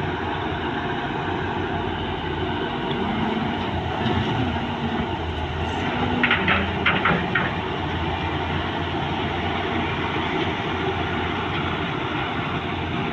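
Volvo EC210B tracked excavator working: diesel engine and hydraulics running steadily under load, the pitch stepping up and down as it works. About halfway through come a few sharp metallic clanks in quick succession, the loudest sounds.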